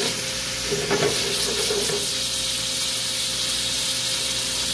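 Swordfish and a wine, tomato, caper and olive sauce sizzling steadily in a frying pan over a gas burner. About a second in, the pan is shaken on the grate for a moment.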